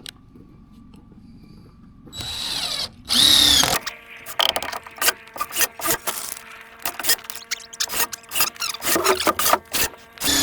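Power drill driving screws into 2x6 lumber: two whirring runs about two and three seconds in, then a string of short, irregular bursts and knocks.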